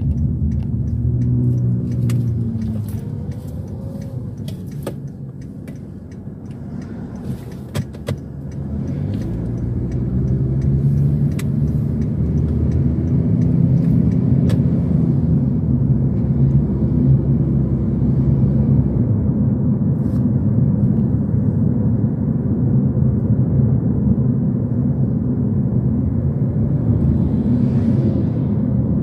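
Car on the road, a steady low rumble of engine and tyre noise. It eases off around six seconds in, then builds again and holds.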